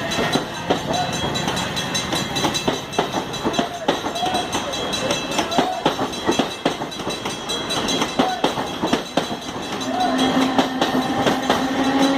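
CPTM series 1100 Budd electric multiple unit running with its characteristic growl ('roncando'), its wheels clicking irregularly over rail joints. A steady low tone comes in about ten seconds in.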